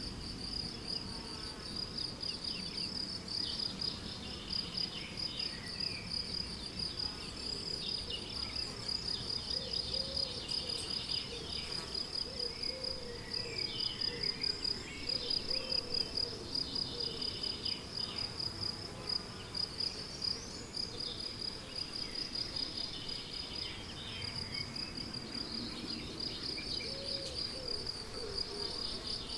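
Crickets chirping steadily in a fast, pulsing trill, with several birds singing short, scattered phrases over them.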